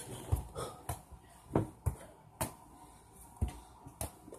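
Handling noise from a handheld phone camera as it is moved around: about seven short, sharp clicks and soft knocks at irregular intervals, fairly quiet.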